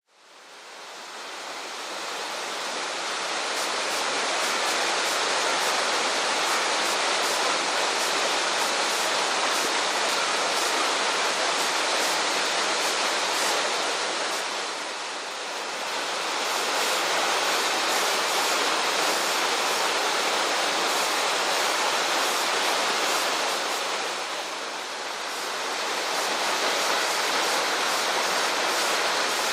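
Waterfall: water falling and splashing in a steady, even rush. It fades in over the first few seconds and dips briefly twice, about halfway through and again near the end.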